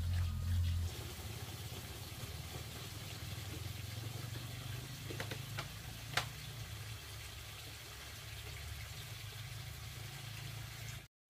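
A small engine running steadily with a low hum, louder for about the first second and fainter after, with a few light clicks around the middle. The sound cuts off sharply just before the end.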